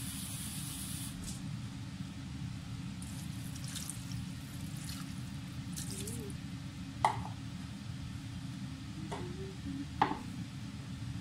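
Water poured into a pot of simmering broth with rice vermicelli, chicken and celery, splashing and trickling over a steady low hum. Two sharp knocks, about seven and ten seconds in, are the loudest sounds.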